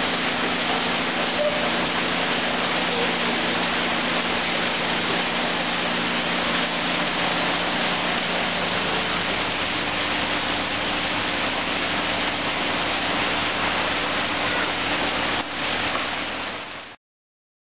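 Steady rushing of water from a small indoor waterfall feature, with a low steady hum under it. The sound dips briefly near the end, then cuts off abruptly.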